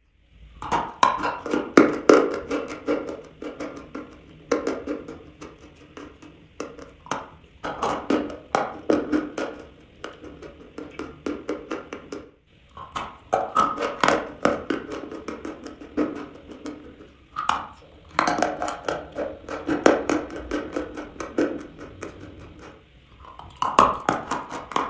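Dry chunks of clay chalk being bitten and chewed: dense sharp crunches and crackles in clusters every few seconds, with brief pauses between bites.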